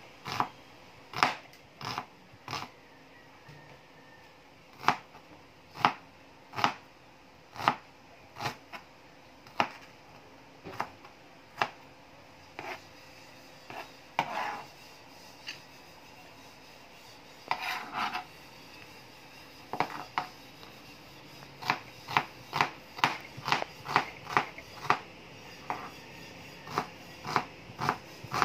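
Chef's knife chopping white onion on a plastic cutting board: single sharp knocks of the blade hitting the board, spaced a second or more apart at first and coming faster, about two a second, near the end.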